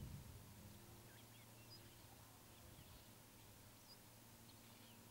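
Faint outdoor ambience: scattered short chirps and whistles from small birds over a low steady hum, with a soft low thump right at the start.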